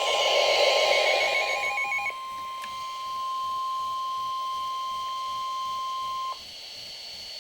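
NOAA Weather Radio warning alarm tone: one steady, high single-pitch tone that cuts off suddenly about six seconds in, leaving faint radio hiss. For its first two seconds a louder hissy, pulsing noise sits over it.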